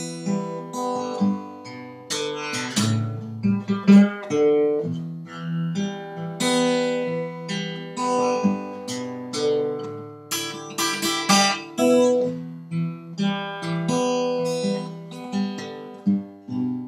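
Background music: an acoustic guitar picking a run of ringing notes and chords.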